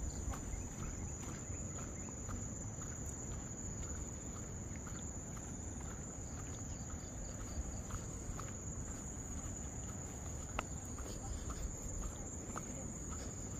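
Insects droning steadily at a high, even pitch, with footsteps ticking about twice a second.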